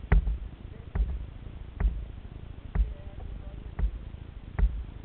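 A steady series of hollow knocks on a plastic tandem kayak, about one a second, picked up through the boat-mounted camera.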